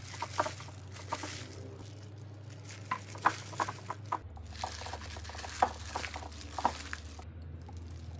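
Plastic-gloved hand tossing sliced onion, chili, bean sprouts and squid in seasoning in a glass bowl, then lifting handfuls onto a plate: soft wet squishing, glove crinkle and irregular light clicks.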